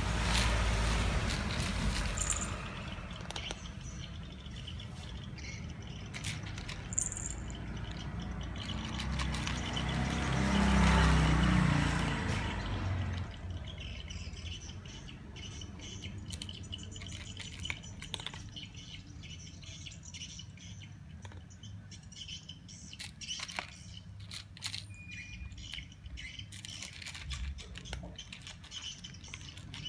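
A cat chewing dry kibble out of a plastic tub, a string of small crunches and clicks, with birds chirping now and then. About ten seconds in, a louder low sound swells and fades over a few seconds.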